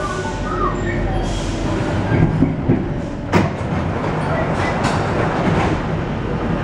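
Paris Metro Line 1 rubber-tyred train running, heard from inside the car: a steady ride noise that builds slightly, with a few sharp clicks and knocks, the loudest about three seconds in.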